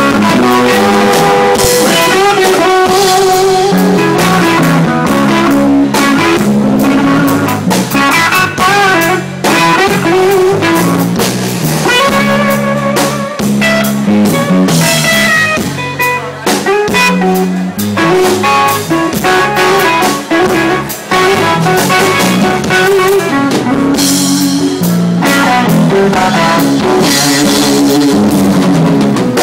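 Instrumental jam: guitar playing over a drum kit, continuous and loud.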